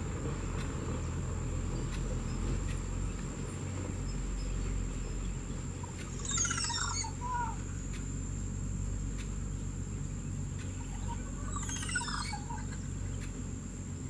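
Crested oropendola singing twice, about five seconds apart: each song is a quick cascade of notes that falls from high to low pitch over about a second.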